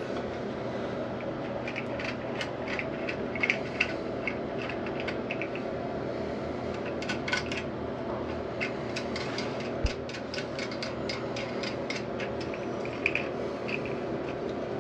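Small plastic clicks, taps and rubbing from the push-button flush actuators inside a toilet tank being adjusted by hand, over a steady low background hum.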